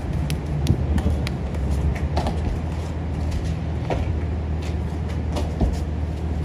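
City street traffic: a steady low engine rumble, with scattered light clicks and taps over it.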